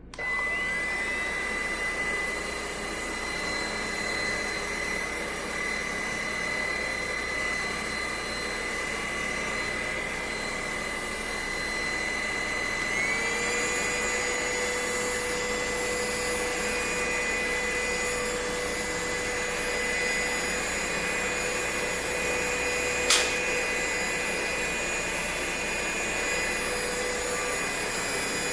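Cordless stick vacuum cleaner's motor running with a steady high whine. It spins up from switch-on at the start, and about 13 seconds in it steps up to a higher speed. A single sharp click comes a little after 23 seconds.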